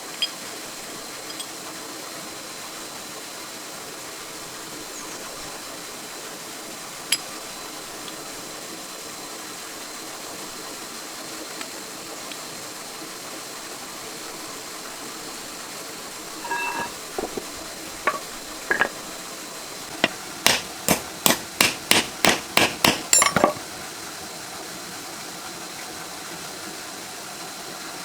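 Hammer striking metal on a tractor part being dismantled: a quick run of about eleven sharp blows, roughly three a second, about twenty seconds in, after a few scattered metal clinks. It is the sign of a part being knocked loose that would not come off by hand.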